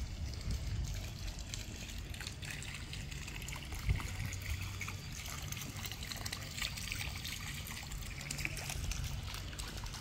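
Water trickling steadily, with a single thump about four seconds in.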